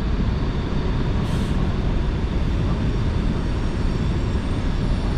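Freight train passing, a steady low rumble with no breaks.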